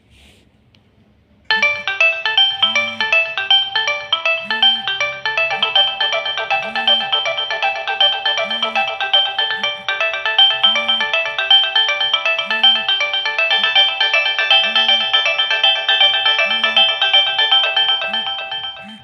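Nokia 6080 mobile phone ringtone playing: a busy electronic melody of several parts over a steady beat. It starts suddenly about a second and a half in and cuts off just before the end.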